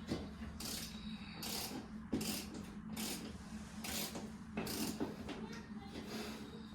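A series of short scraping or rubbing strokes, about one a second and uneven, as air-conditioning vent parts are worked on and cleaned, over a steady low hum.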